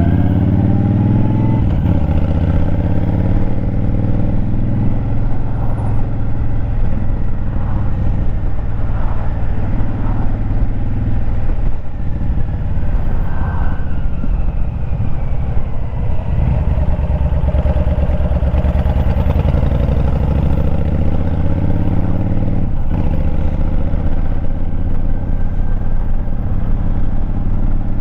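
Motorcycle engine running on the road, heard from a mount on the bike. Its pitch climbs as it accelerates at the start, then again after a short break about 23 seconds in.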